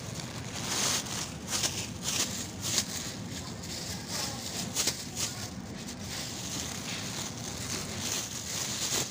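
Thin plastic produce bag rustling and crinkling in irregular short crackles while sweet potatoes are picked from a bin by hand, over a steady low hum of shop background noise.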